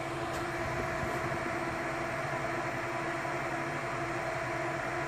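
Dell PowerEdge 1950 rack server's cooling fans running at high speed while the server is still starting up: a steady rush of air with a hum of several steady tones.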